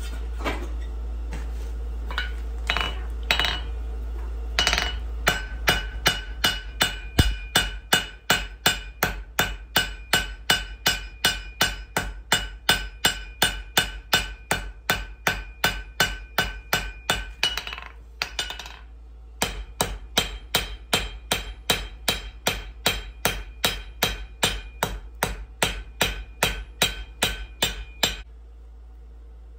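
Hand hammer striking hot steel on an anvil, spreading the end of a bar into a round plate. A few scattered blows come first, then a steady run of ringing strikes about two to three a second. The hammering breaks off briefly past the middle, picks up again, and stops a second or so before the end.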